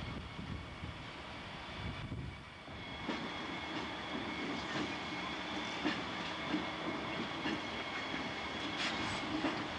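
Freight train rolling past, with a low rumble for the first couple of seconds. After a short dip, the cars' wheels click and thump over rail joints in an uneven rhythm, with a faint steady high whine.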